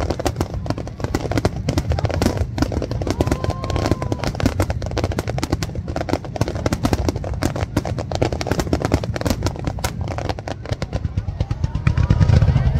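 Dense fireworks barrage: many shell bursts and crackling stars going off in rapid succession over a low rumble, loudest near the end.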